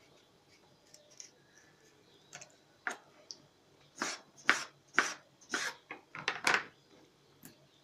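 Kitchen knife slicing a tomato on a plastic cutting board: sharp knocks of the blade meeting the board, a few soft ones at first, then a quicker run of louder ones from about four seconds in.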